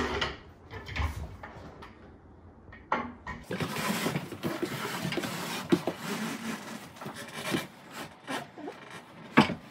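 A quartz countertop slab being shifted into place on wooden base cabinets: scraping and rubbing with a few knocks, the sharpest knock near the end.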